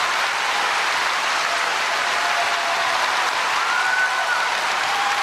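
Large theatre audience applauding steadily at a curtain call, with a brief held high call or whistle rising above the clapping about three and a half seconds in.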